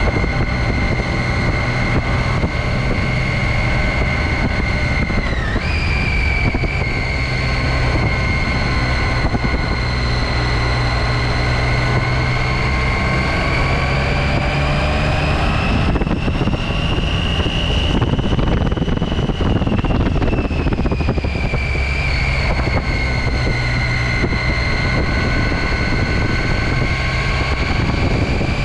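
Triumph Tiger XCx adventure motorcycle's three-cylinder engine running steadily under way, heard from a camera on the bike. A high whine in its sound steps up in pitch about five seconds in, then rises and falls again about two thirds of the way through as the bike's speed changes.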